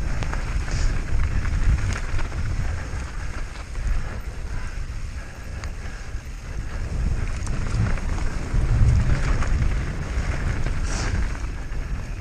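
Wind rushing over the microphone of a mountain bike speeding downhill, a loud low rumble that surges and eases, with scattered rattles and clicks from the bike over rough ground.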